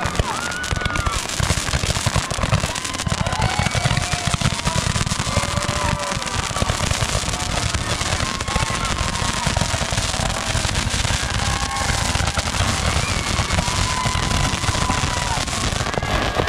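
Handheld multi-shot firework shooting a dense, rapid stream of pops and crackles, with several drawn-out whistles over it.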